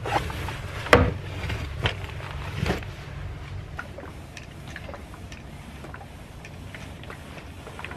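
A few sharp knocks and rustles as clothes are handled, then a steam iron sliding back and forth over a shirt, with soft fabric rustling and faint ticks.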